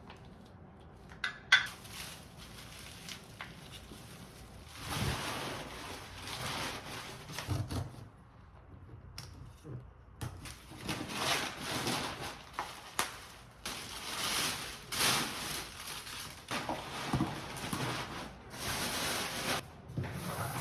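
Household objects being handled: a sharp click, then repeated light knocks and rustling swishes that come and go.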